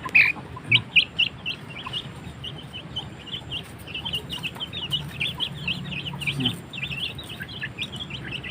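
Bangkok fighting-breed chicks peeping: many short, high chirps in quick succession.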